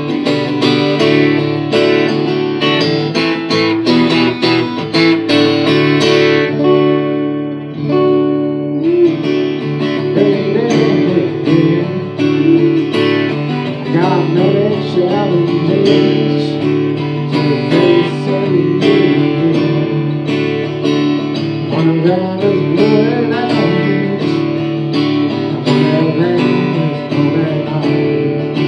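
Acoustic guitar strummed steadily, easing off briefly about eight seconds in; from about ten seconds in a man sings over the strumming.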